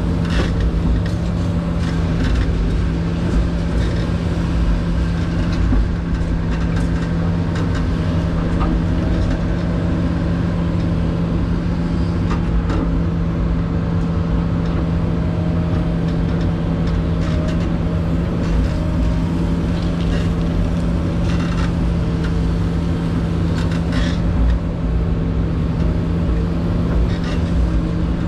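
Excavator's diesel engine running steadily with a strong hum, heard from inside the cab while it digs. A few short scrapes and clanks of the steel bucket in dirt and rock come through, several of them in the second half.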